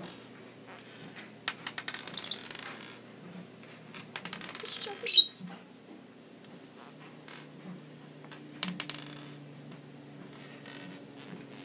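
Peach-faced lovebird pecking at and tossing a small plastic cap on a wooden tabletop, making bursts of rapid clattering clicks. About five seconds in it gives one short, high-pitched squawk, the loudest sound.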